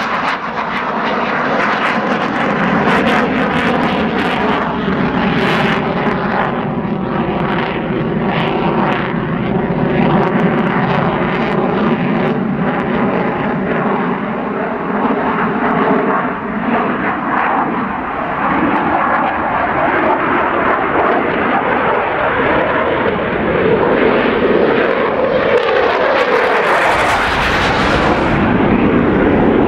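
Dassault Mirage 2000's single SNECMA M53 jet engine running loud and steady as the fighter flies a display pass, with the tone sweeping as the jet goes by. Near the end a deep low rumble comes in as it climbs away on afterburner.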